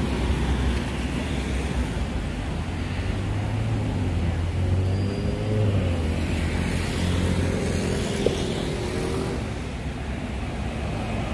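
City street traffic: vehicle engines running by with a steady low hum that grows stronger in the middle, and a single sharp click about eight seconds in.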